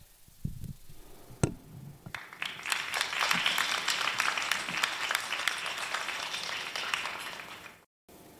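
Audience applauding: a single sharp knock about a second and a half in, then clapping that starts about two seconds in and holds for some five seconds before cutting off suddenly.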